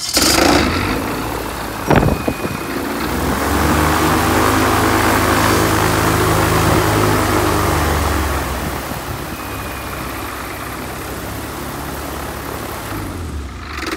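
Honda-based, direct-injected Viking 130 aircraft engine, turning a three-blade propeller, starting up with a sharp knock about two seconds in. It revs up and back down, then runs steadily at a lower speed until it winds down as it is shut off at the very end.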